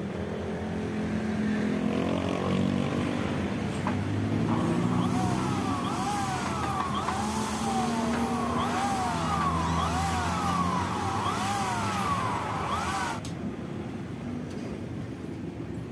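Cordless drill driving screws into an aluminium door frame, its motor whine rising and falling in pitch over and over for about eight seconds, then stopping abruptly. A low vehicle engine rumble runs underneath.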